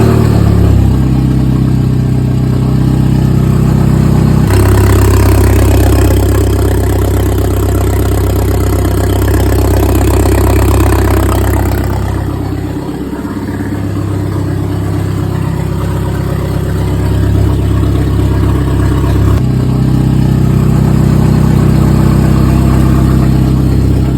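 Audi A4 B5's 1.8T turbocharged four-cylinder engine running just after being started, at a steady idle. Its speed and loudness step up about four seconds in, drop back around thirteen seconds, and rise again near nineteen seconds.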